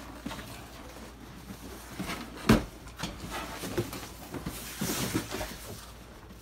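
Cardboard rustling and scraping as a boxed RC boat is pulled out of its cardboard shipping carton, with one sharp thump about two and a half seconds in. Near the middle the box scrapes as it slides onto a wooden table.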